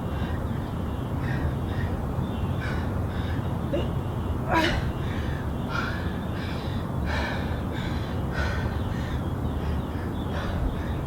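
Heavy panting from a woman exercising hard during diamond push-ups: short, loud breaths about once a second, one sharper gasp about four and a half seconds in, over a steady low rumble.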